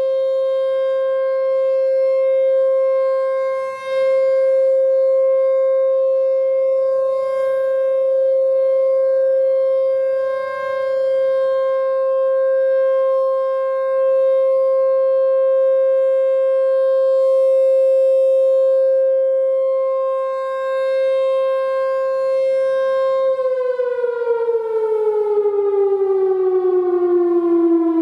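Whelen Vortex R4 electronic tornado siren sounding its steady alert tone with many overtones. About 23 seconds in, the pitch starts gliding down as the three-minute alert winds down. The uploader believes its speaker drivers need replacing.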